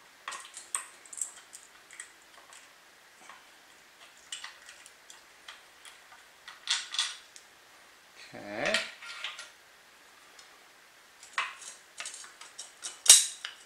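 Small metal clicks, clinks and light scrapes of tools and bolts as the two bolts holding the lower unit of a small Hangkai outboard motor are worked loose. The clicks come irregularly, with a few louder clusters and one sharp clink near the end.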